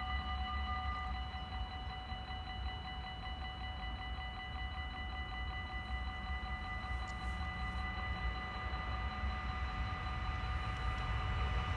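Dutch automatic level-crossing bells ringing steadily at several pitches while the half-barriers come down, warning of an approaching train; one tone drops out about a second in. Near the end a rising rush of noise builds as the train draws near.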